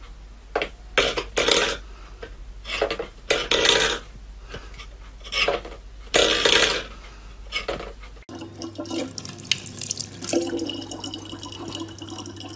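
A cat pawing at a stainless steel bowl on a wooden floor, the metal bowl clattering in a dozen or so irregular bursts. About eight seconds in it changes to water running steadily from a tap into a large plastic water bottle, over a low steady hum.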